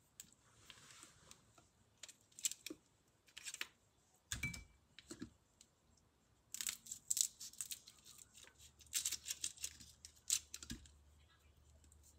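Scissors snipping the antennae and whiskers off raw prawns: short, crisp cuts in irregular clusters, with a dull knock about four seconds in.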